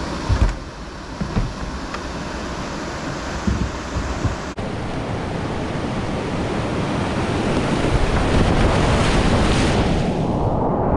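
River whitewater rushing, heard from a kayak running a rapid, with wind buffeting the camera microphone and a few thumps in the first seconds. After an abrupt cut about four and a half seconds in, the rushing water grows louder with splashing over the bow, then sounds muffled near the end as spray covers the camera.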